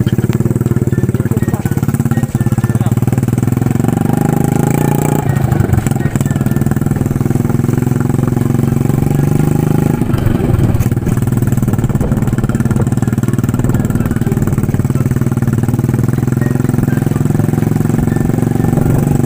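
Small motorcycle engine running steadily while riding, heard from on board, its pitch shifting a little now and then with the throttle.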